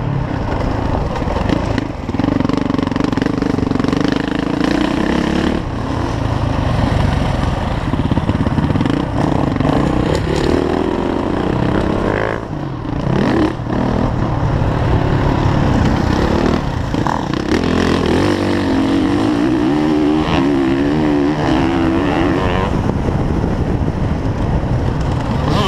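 Motocross bike engine at full load, revving up and dropping back again and again, with brief dips where the throttle is shut off, heard from the rider's helmet camera.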